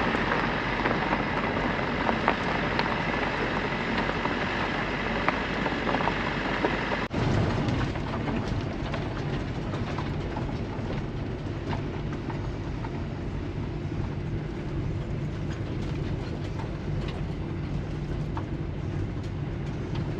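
Small van being driven, with steady engine and road noise heard inside the cab. About seven seconds in the sound drops sharply for a moment, then goes on with a steadier low engine hum.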